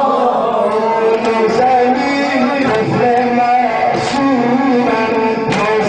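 A male voice chanting a Shia Muharram lament (noha) of the kind sung for chest-beating mourning, in long held, wavering phrases, with a couple of sharp slaps in the second half.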